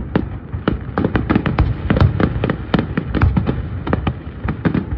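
Aerial fireworks shells bursting in quick succession, a dense string of booms several times a second with no break.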